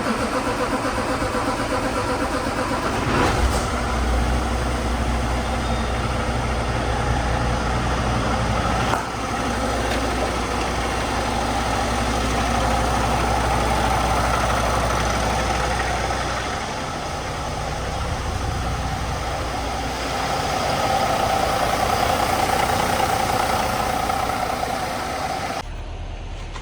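Semi truck's diesel engine cranking and catching about three seconds in, then running steadily at idle. It is being restarted after an oil and filter change, with air just bled from the system.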